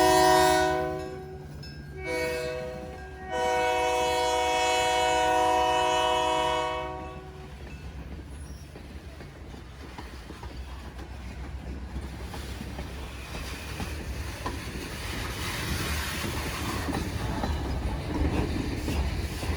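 Multi-chime air horn blowing a chord of several tones: a blast that stops about a second in, a short blast, then a longer blast of about three and a half seconds. After that, a rumbling noise builds toward the end.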